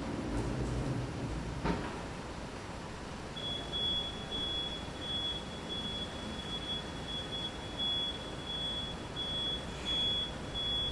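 City street traffic with a low rumble of a passing vehicle at the start and a short click; about three seconds in, a high-pitched electronic beep starts and keeps pulsing rapidly and evenly over the traffic.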